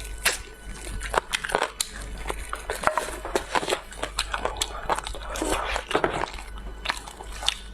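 Close-up eating sounds: irregular biting and chewing, with many small sharp crunches and clicks.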